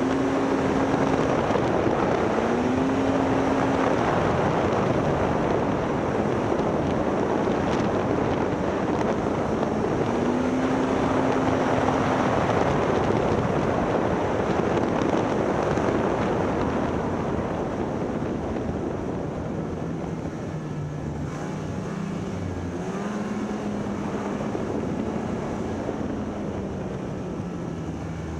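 Snowmobile riding fast over snow: the engine runs under a heavy rush of wind on the microphone, its note rising and falling as the throttle is worked. In the second half it eases off, and the engine note drops lower and the noise gets a little quieter.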